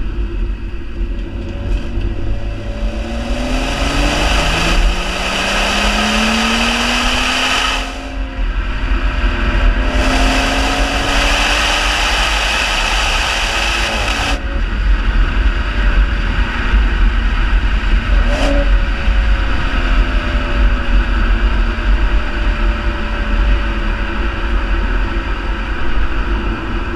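The BMW 340i's 3.0-litre turbocharged B58 inline-six, heard at the sport exhaust tip, accelerates hard with its pitch rising through two gears. Each climb ends in a sudden drop in pitch at the gear change. For the rest of the stretch it runs steadily at a lower, slowly falling pitch, with wind rushing over the microphone throughout.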